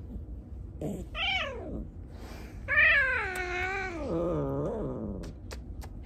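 Domestic cat meowing twice: a short call about a second in, then a long, drawn-out meow that starts high and slides down in pitch.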